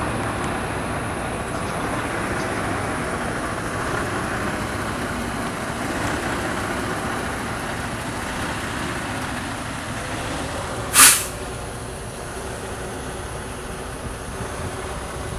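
1972 Chevrolet El Camino's engine idling steadily, a continuous low rumble, with one brief loud noise about eleven seconds in.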